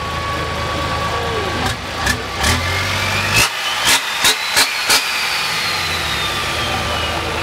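Custom turbocharged diesel truck engine running steadily, with a run of sharp cracks in the middle. A high whistle rises, then slowly falls away.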